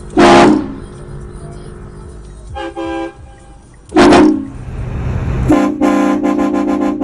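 Train horn sounding: two short, very loud blasts about four seconds apart, then from about five and a half seconds in a held multi-note chord that breaks into quick stuttering pulses.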